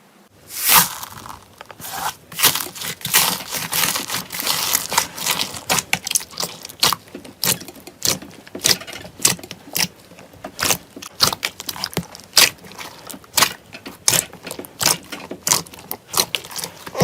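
Slime being squeezed and pressed by hand. It starts as a dense crackling for the first few seconds, then turns into separate sharp clicks and pops, about two or three a second.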